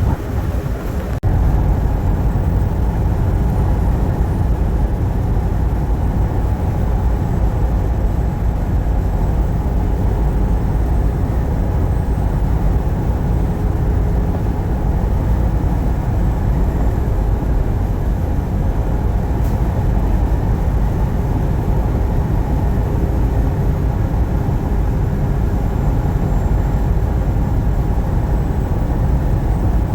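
Steady road and engine rumble of a truck driving on the highway, heard from inside the cab. The level steps up about a second in.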